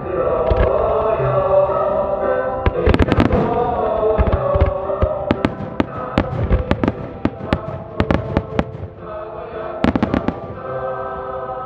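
Starmine fireworks launching and bursting: a fast run of sharp bangs from about three seconds in to about eight and a half, and another cluster near ten seconds. Underneath is music with long held notes.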